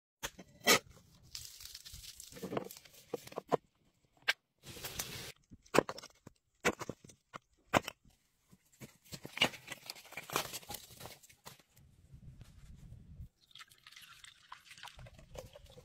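Crunching and tearing of crispy fried chicken coating, then a series of sharp knocks from an axe chopping wood. Near the end, buttermilk pours in a steady stream into a wooden bowl.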